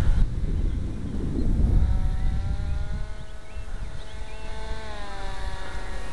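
The motor and propeller of a radio-controlled powered paraglider in flight, giving a steady whine from about two seconds in that dips and comes back up in pitch a little after the middle. Wind rumbles on the microphone underneath, heaviest in the first couple of seconds.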